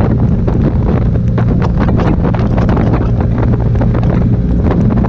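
Motorcycle engine running at a steady speed through a new GPR aftermarket exhaust, a loud even note with no revving, with wind buffeting the microphone.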